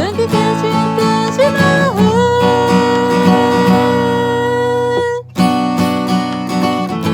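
Acoustic guitar strummed under a woman's voice singing, one long held note through the middle. Voice and guitar cut off briefly about five seconds in, then the strumming carries on.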